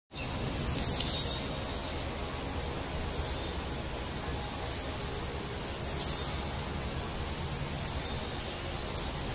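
Outdoor ambience: a steady low background rumble with short, high-pitched chirps recurring every second or two.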